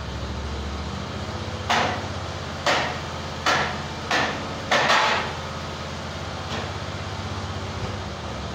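Band sawmill's engine idling steadily under five sharp, ringing knocks about a second apart, the last one doubled, as the log is handled on the mill bed.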